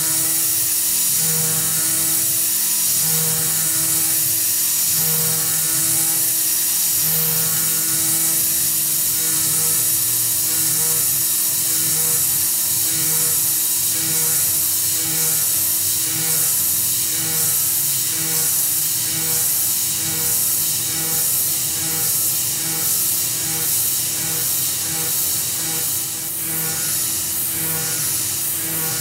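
Tormach 440 CNC mill milling aluminium with a 3/16-inch two-flute carbide end mill at 10,000 RPM, a steady high cutting whine under a loud hiss of mist coolant spray. The hiss pulses a few times near the end. Background music plays underneath.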